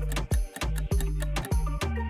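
Background music with steady bass notes and a clock-like ticking about three times a second, the kind of loop played under a quiz countdown timer.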